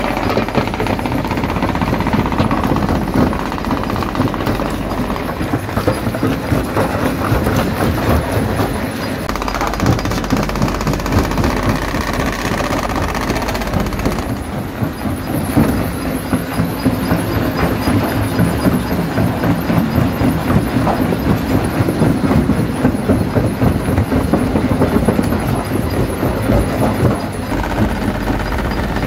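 Stone jaw crusher running and crushing rock: a continuous loud din of dense knocks and grinding as stone breaks between the jaws.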